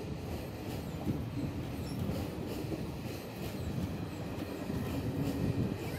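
Bihar Sampark Kranti Express passenger coaches rolling past close by: a steady rumble of wheels on rails with a regular clicking of wheels over rail joints, about two clicks a second.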